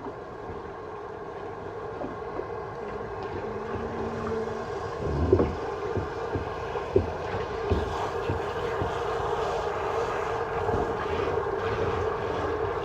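Water running steadily from a kitchen sink faucet, with a few dull knocks from about five seconds in.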